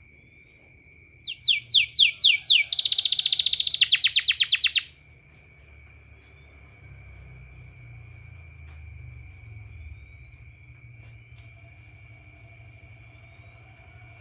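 A canary sings one loud phrase starting about a second in: a handful of quick downward sweeps, then a fast rolling trill lasting about two seconds, cut off abruptly. A steady high-pitched tone continues underneath throughout.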